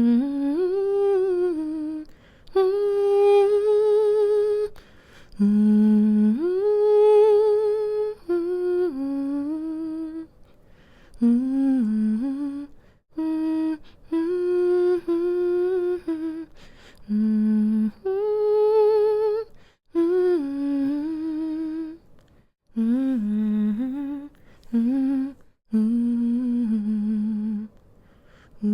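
A woman humming a slow, soothing lullaby with her mouth closed, in phrases of held and gently gliding notes with short pauses for breath between them.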